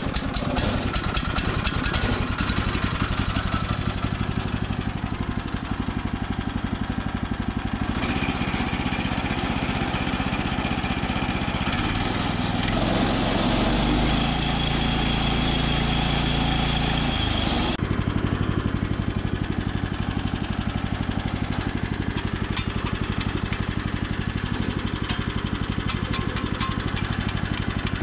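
Small engine running steadily after being started. Between about 8 and 18 seconds in its note shifts and a high whine joins it, then it settles back to the earlier steady run.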